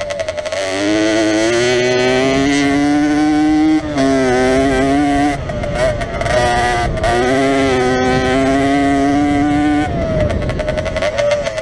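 Jawa 50 enduro's small two-stroke engine revving hard under load, its pitch climbing steadily, dropping sharply about four seconds in, running choppy for a moment, then climbing again and falling back near the end.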